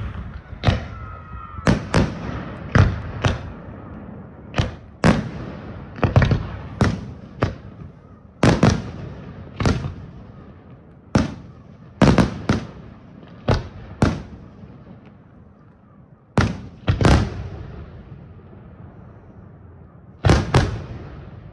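Aerial firework shells from a Senatore Fireworks display bursting in an irregular run of about two dozen sharp bangs, several in quick pairs, each trailing off in a rolling echo. The bursts thin out in the last few seconds, then one more pair sounds near the end.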